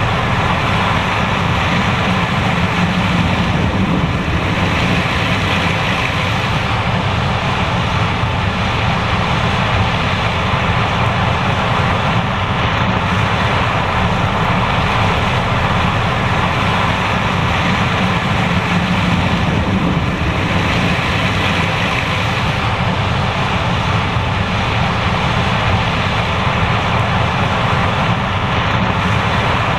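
John Deere S780 combine running steadily as it harvests corn: a loud, even machine noise that holds without a break.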